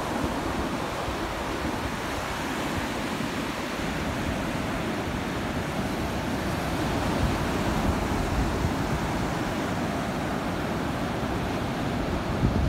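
Sea surf breaking and washing up a sandy beach in a steady rushing wash, with wind rumbling on the microphone at times.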